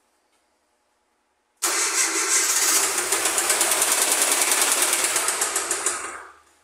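Ford Fiesta Supercharger engine started about a second and a half in, running with a loud, rapid, even knocking for about four seconds before it is shut off and dies away. The mechanic takes the noise for a spun connecting-rod bearing: the engine has thrown a rod bearing.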